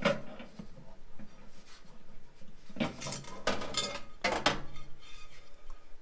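Glass microwave turntable tray clinking and knocking against the oven cavity as it is lifted out, with a sharp click at the start and a cluster of clatters about three to four and a half seconds in.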